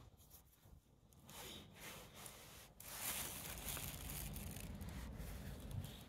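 Soft scratchy sounds, then from about three seconds in a paper towel crinkling and rustling as it is handled close by.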